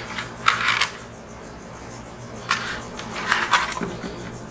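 Dry seasoning rub shaken from a plastic shaker bottle onto beef short ribs in a metal sheet pan, in two bouts of quick rattling shakes, the second starting about two and a half seconds in. A soft knock near the end as a rib is handled on the pan.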